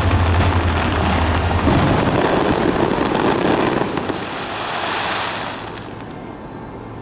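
Fireworks display: a dense barrage of bursts with deep booming and continuous crackling. After about four seconds it thins into a fading crackle as the glittering shells burn out.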